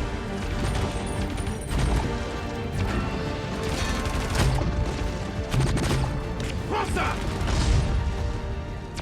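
Background music: a dramatic track with heavy percussive hits and crash-like impacts, starting to fade out near the end.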